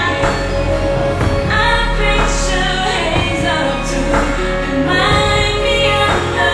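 A song plays, with a woman singing a slow melody over a steady instrumental backing.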